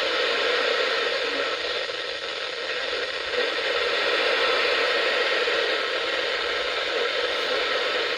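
Steady static hiss from a weather radio with weak, noisy reception.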